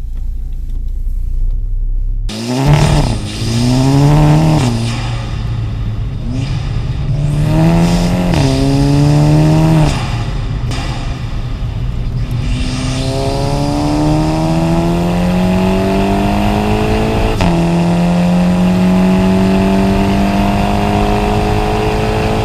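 Car engine with a straight-pipe exhaust, its resonator removed, heard from inside the cabin. It idles, then pulls away about two seconds in and accelerates through the gears, the pitch climbing and then dropping at each upshift, three times.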